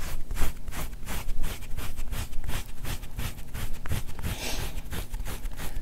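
Gua sha tool scraping over the skin on the back of the shoulder in quick repeated strokes, about five a second, with one longer stroke a little after halfway.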